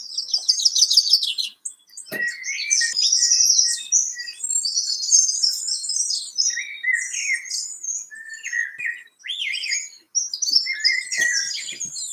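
Recorded birdsong playing: several songbirds chirping, trilling and whistling short phrases one after another, with brief lulls.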